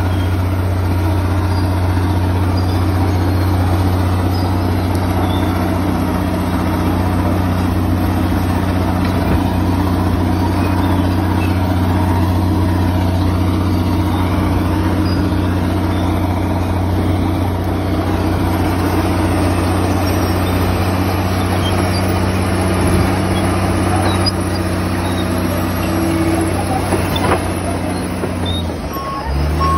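Komatsu D65PX crawler dozer's diesel engine running steadily under work. Near the end the engine note drops and shifts.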